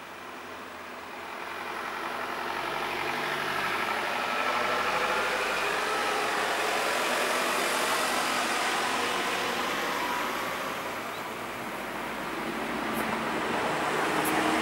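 Road traffic: a passenger van drives past close by, its engine and tyre noise swelling and fading away. A second car approaches near the end.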